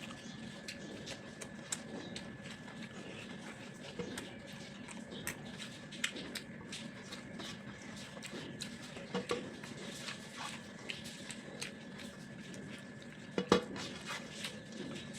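Eating at a plate: small, scattered clinks and taps of food and fingers or a utensil against the dish, with one sharper, louder clink about 13 seconds in.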